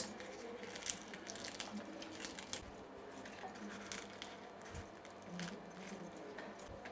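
Faint crisp crackling of fried aloo samosa pastry being broken apart by hand over a glass bowl, with scattered small clicks and clinks.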